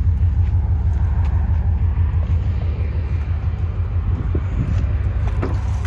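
The Suburban's swapped-in LS V8 idling with a steady, deep rumble through its headers.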